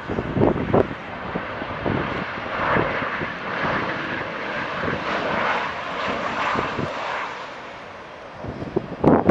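Jet engine noise from a Boeing 737-700's CFM56 turbofans as the airliner lands and rolls out: a broad rush that builds about two seconds in, holds, then fades over the last couple of seconds. A few gusts of wind buffet the microphone near the start and the end.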